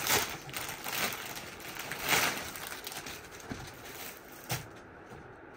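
Clear plastic packing crinkling and cloth rustling as a folded velvet suit is unwrapped and unfolded by hand: several loud crackles in the first two seconds or so, then softer rustling with one short crackle near the end.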